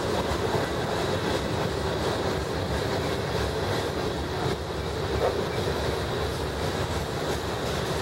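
Covered hopper cars of a passing freight train rolling by: a steady noise of steel wheels on rail, with occasional faint clicks and a faint, steady high tone.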